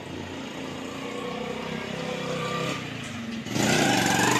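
Qjiang QJ100-C motorcycle engine running. It grows steadily louder over the first few seconds, then is much louder for about a second near the end.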